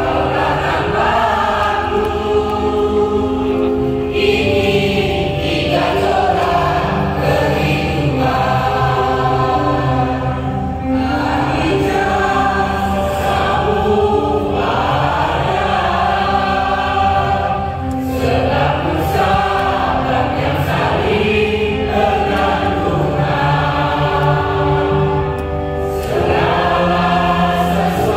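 Mixed choir of men and women singing a slow song in several parts, holding each note for a second or two, amplified through microphones.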